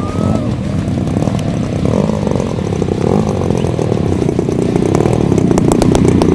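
The 110cc petrol engine of a large aerobatic RC plane running continuously, growing a little louder toward the end.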